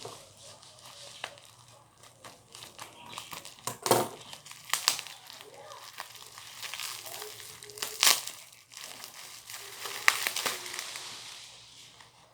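Packaging of a faucet water-filter cartridge being handled and unwrapped: irregular crinkling and rustling with sharp crackles, the loudest about 4, 8 and 10 seconds in.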